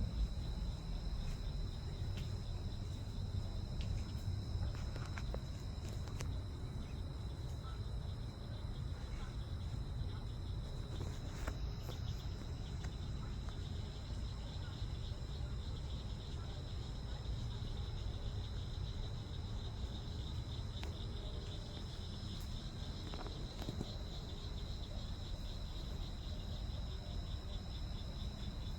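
Insects, crickets or similar, chirping steadily in a high, fast-pulsing drone, over a constant low rumble.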